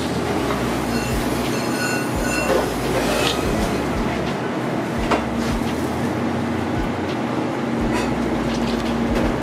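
Steady loud noise of a working commercial kitchen, with a hum joining about halfway through. A few sharp clinks of steel containers against a stainless-steel mixing bowl stand out from it.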